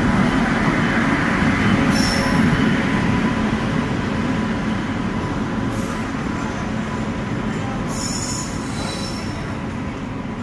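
Passenger train rolling along the platform: a steady rumble that slowly fades, with short high-pitched wheel squeals three or four times.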